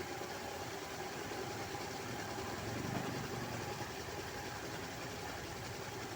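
Carpet spin dryer built from a scrapped washing machine, running steadily.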